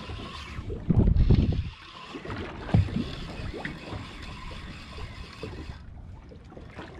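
Wind gusting on the microphone and water slapping against the hull of a small boat drifting at sea, with a single sharp knock about three seconds in.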